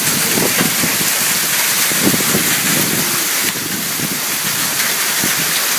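Heavy rain pouring down in a severe thunderstorm, with gusting wind rumbling unevenly underneath.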